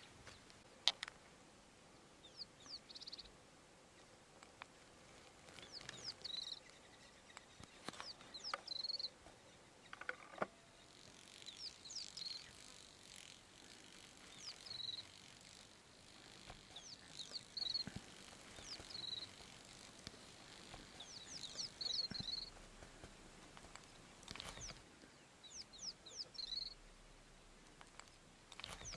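Faint outdoor ambience: a bird repeating a short call of a few quick rising chirps every one to three seconds, with a few soft clicks in between.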